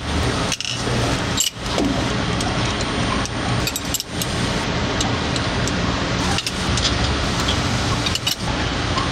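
Light metallic clinks of a hex key and bolts against an aluminium fixture as it is bolted down, over a steady mechanical hum.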